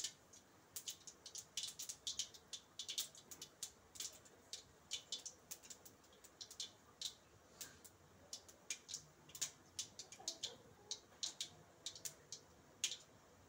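Mustard seeds popping in hot oil, with chana dal: faint, irregular sharp crackles, several each second. This is the tempering stage, the sign that the oil is hot enough for the next ingredients.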